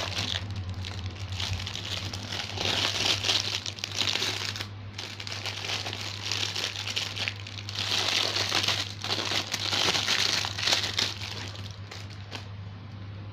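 Thin clear plastic bag crinkling as the sandals inside it are handled, in two longer stretches of rustling with a short break between them, over a low steady hum.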